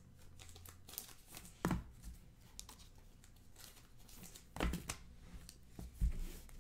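Baseball trading cards and foil pack wrappers being handled, with soft crinkling and rustling and three louder sharp taps, the first a little under two seconds in and the others near the end.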